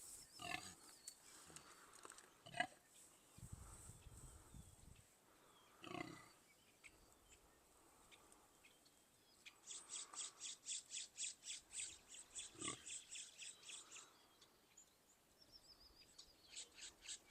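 Faint farm animal calls: a few short separate calls, then a rapid high-pitched chirping about five times a second, starting about ten seconds in and lasting some four seconds, and starting again near the end.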